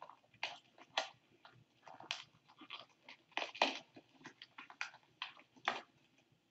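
Food and utensils being handled at a kitchen counter during plating: a string of irregular, short, crisp crackles and light clicks.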